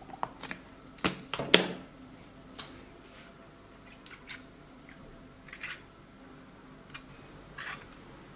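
A few sharp knocks and clicks in the first two seconds, the loudest about a second and a half in, then soft scattered taps and swishes of a silicone pastry brush spreading oil over the bottom of a glass baking dish.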